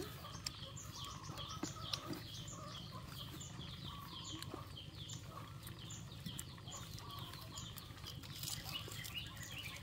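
Faint birds chirping continuously in the background, with scattered small clicks and a steady low hum underneath.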